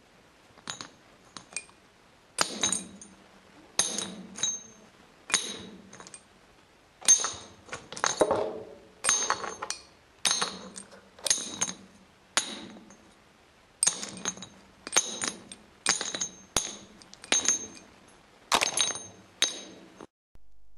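Repeated sharp metallic clinks close to the camera, about one to two a second, each with a brief ringing tail. They come from a hook lowered on a string knocking against the camera lost at the bottom of a deep stone well, and against the stones around it, as it is fished for.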